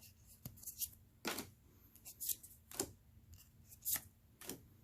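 Playing cards being flipped or dealt one at a time, a short crisp swish or snap of card stock about twice a second.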